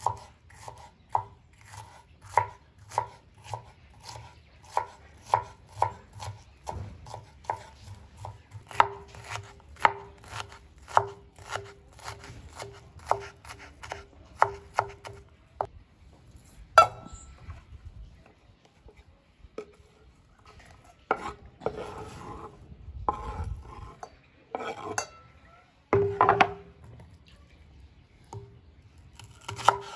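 Kitchen knife chopping an onion on a wooden cutting board, with sharp knocks about two a second. After about sixteen seconds the knocks become sparse and uneven, mixed with longer scrapes of the blade across the board as the chopped onion is gathered.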